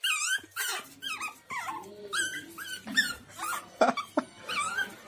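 Pug puppy whining and yipping in a rapid series of short, high-pitched calls, about two to three a second.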